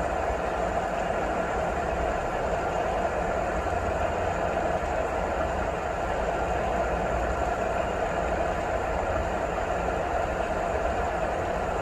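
Steady, unbroken rain noise with a low rumble underneath, even in level throughout.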